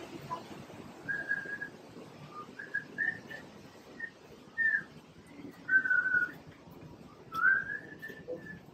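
A person whistling a loose string of short notes and a few longer held tones, one of them wavering and the last sliding upward before it is held.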